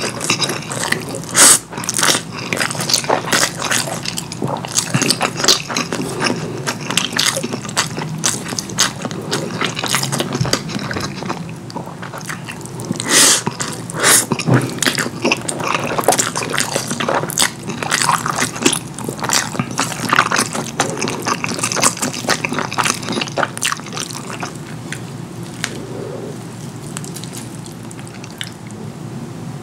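Close-miked, wet chewing and mouth sounds of someone eating saucy curry food, a dense run of quick sticky clicks and smacks that thins out near the end.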